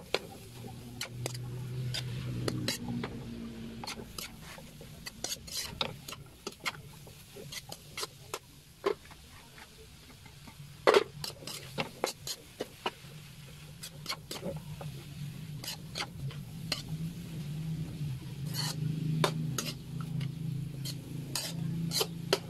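A metal spatula stirring bamboo shoots in a metal wok, scraping and knocking against the pan in irregular clicks.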